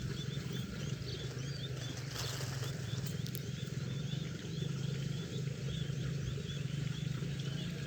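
Outdoor animal chorus: a steady low pulsing drone with many short high chirps repeating several times a second.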